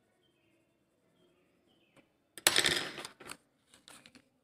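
A sheet of scrap paper rustling as it is picked up and handled: a loud, sudden rustle about halfway through, then a few smaller rustles.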